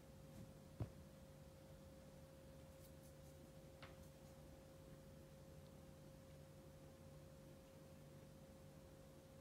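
Near silence: quiet room tone with a faint steady hum, and one soft click about a second in.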